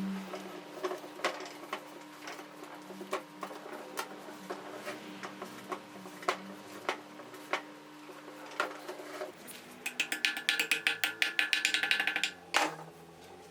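Scattered light metal clicks and taps of hand-tool work, then a ratchet mechanism clicking rapidly and evenly, about ten clicks a second, for a couple of seconds near the end, closed by one sharp click.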